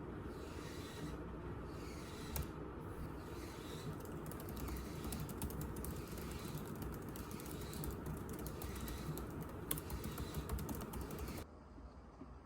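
Typing on a computer keyboard: a fast, irregular run of light key clicks over a steady low room hum. The sound cuts off abruptly about a second before the end.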